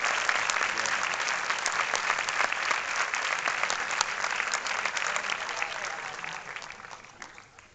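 Large auditorium audience applauding, a dense steady clapping that fades away over the last couple of seconds.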